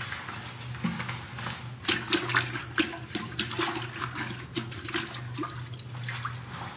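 Wet string mop being dunked and swished in a toilet bowl, water splashing and sloshing in a string of irregular splashes, loudest about two seconds in.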